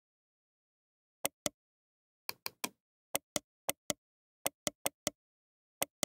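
Computer mouse button clicking in quick pairs, press then release, about seven pairs with dead silence between them.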